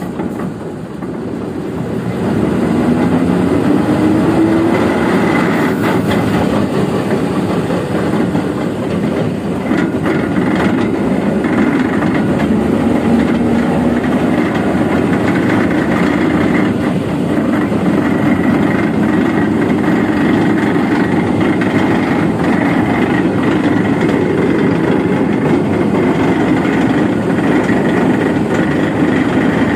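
Heavy truck's engine being revved: the level and pitch rise about two seconds in, then it keeps running steadily at raised speed, heard from under the chassis beside the rear dual wheels. It is the noise the owner is checking as an unwanted 'sad sound'.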